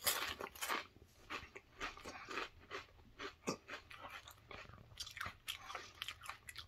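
A mouthful of ridged potato chips (Flamin' Hot Cheddar and Sour Cream Ruffles) being chewed with the mouth closed: a steady string of dry crunches, roughly two a second.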